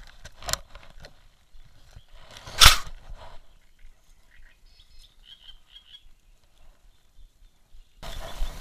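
Frogs croaking faintly from the reedy pond, over a few sharp clicks of hands handling a lure and a plastic tackle box, the loudest click about two and a half seconds in. A steady rush of noise sets in near the end.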